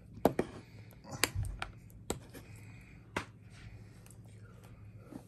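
Fingernails picking and scratching at a security sticker on a plastic DVD case, with several sharp clicks and taps against the case and one dull thump.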